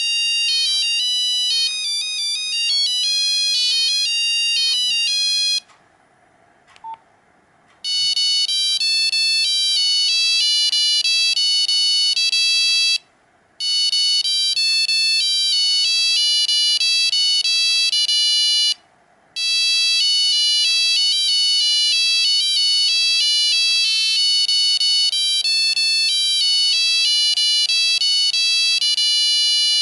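Nokia 5125 monophonic ringtones: fast single-note beeping melodies from the phone's buzzer. One tune stops about six seconds in, a brief beep follows, and a second ringtone starts about two seconds later and repeats with two short breaks.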